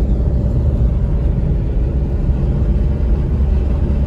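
Steady low rumble of a car driving at speed, heard from inside the cabin: engine and tyre-on-road noise, unchanging throughout.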